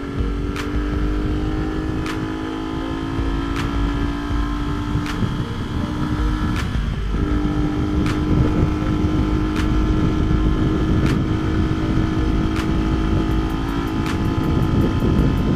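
Sport motorcycle engine running steadily at cruising revs, its note rising slowly, with a brief dip about seven seconds in. Heavy wind rumble on the bike-mounted camera's microphone lies under it.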